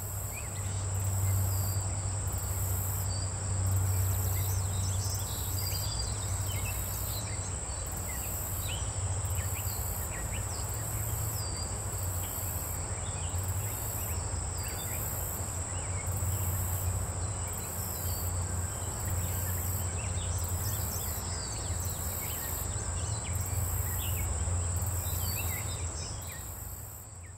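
Outdoor ambience of insects trilling in a steady high tone with a regular pulsing, scattered short bird chirps, and a low steady hum underneath; it all fades out near the end.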